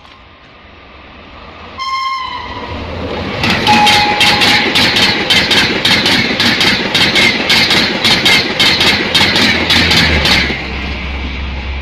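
A train horn sounds briefly about two seconds in. Then the Gatimaan Express, hauled by a WAP5 electric locomotive at about 160 km/h, rushes past close by, its wheels clacking rapidly over the rail joints, about three or four clacks a second, for some seven seconds. Near the end this eases to a low rumble as the last car goes by.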